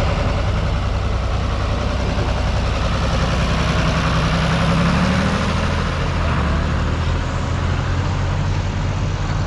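John Deere 3050's 5.9-litre six-cylinder diesel engine running steadily close by, swelling a little about halfway through.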